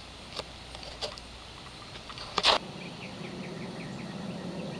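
Insects chirping in a quick, regular rhythm over a low steady hum, with a sharp click about halfway through.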